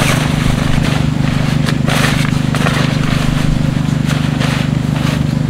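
Tent mesh and nylon fabric rustling in irregular bursts as it is lifted and folded back, over a steady low hum.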